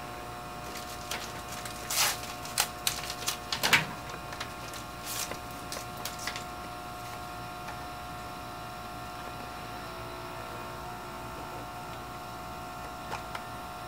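Steady hum of a biosafety cabinet's blower, with several fixed tones. A handful of sharp plastic clicks and knocks come between about two and six seconds in as tubes and a pipette are handled.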